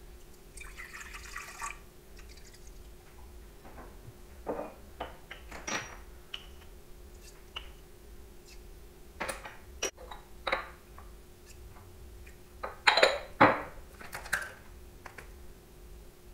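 Scattered knocks and clinks of kitchen utensils and containers being handled at a bench, with a brief pouring or rustling sound near the start and a faint steady hum underneath; the loudest knocks come close together near the end.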